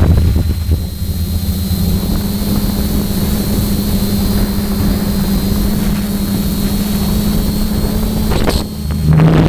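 The electric motors and propellers of a DJI 450-clone quadcopter run steadily in fast flight, heard from the camera on the drone, with a steady hum over wind rush. Near the end the sound dips briefly, then the hum drops lower in pitch as the throttle changes.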